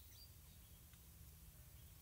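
Near silence: faint outdoor background with a steady low hum, and a couple of faint, short, high chirps near the start.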